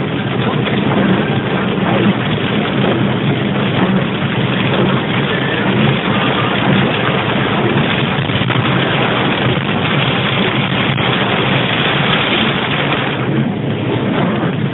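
A car driving through heavy rain, heard from inside the cabin: a steady dense hiss of rain on the roof and windscreen and tyres on the soaked road, over the low hum of the engine.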